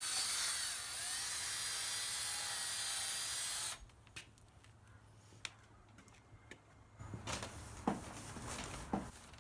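Electric drill spinning a beige sandpaper disc against a plastic headlight lens, its whine dipping briefly about a second in, then cutting off suddenly after about four seconds. Light clicks and a few knocks follow as the drill and disc are handled.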